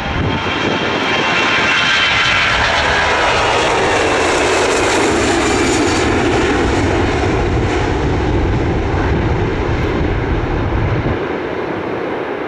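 Airbus A340-300's four CFM56 turbofan engines at takeoff thrust as the airliner lifts off and climbs past: a loud jet roar whose high whine falls in pitch over the first few seconds, then a deeper rumble that eases slightly near the end.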